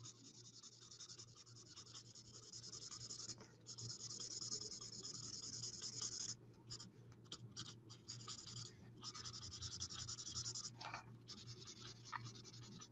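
Alcohol-ink blending marker scratching over cardstock in long colouring strokes, faint, with short pauses between strokes.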